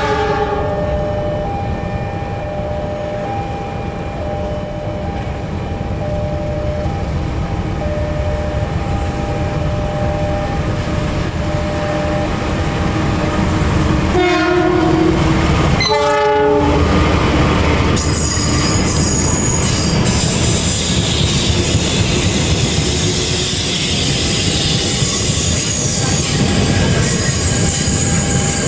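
A diesel-electric passenger locomotive running past with a steady rumble, sounding its horn at the start and twice more, about two seconds apart, around the middle. In the last third an electric commuter train passes close by, its wheels rattling and squealing on the rails over a high whine.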